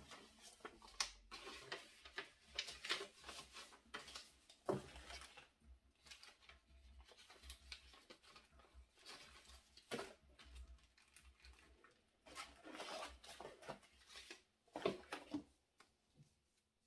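Sheets of paper and a card rustling and crinkling as they are handled, unfolded and folded, with a few sharper knocks.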